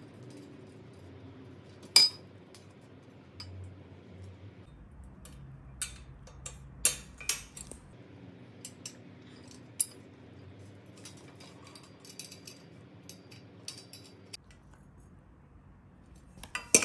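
Sharp metallic clicks and light clinks of a small bolt and nut being handled and fitted into the plastic hinge bracket of an IKEA MULIG steel drying rack frame. The loudest click comes about two seconds in, with another near the end.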